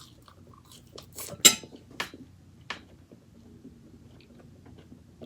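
Close-miked mouth eating sounds: a few short, sharp crunches and clicks between about one and three seconds in, the loudest about a second and a half in, then near quiet.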